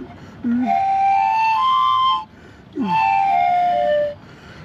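A flute playing two short phrases of held notes: the first steps up in pitch, and after a short breath gap the second steps back down.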